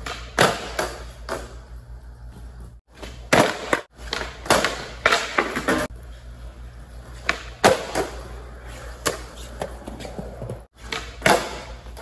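Skateboard on a smooth concrete floor during repeated flatground flip-trick attempts: tail pops and the board and wheels slapping down give a string of sharp clacks between stretches of wheels rolling. A steady low hum runs underneath.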